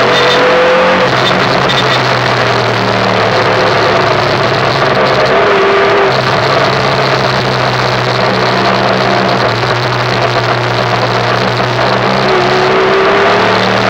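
Derestricted Yamaha YBR 125's single-cylinder four-stroke engine running under way, mostly at a steady note, dipping about five seconds in and revving up near the end. Strong wind and road rush lie over it.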